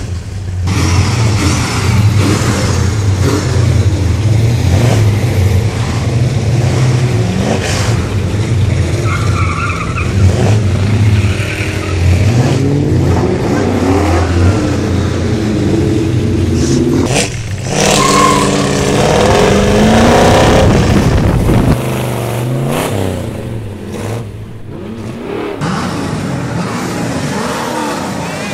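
Muscle car engines running loud through performance exhausts, revving up and down several times, with abrupt changes from one car's sound to another.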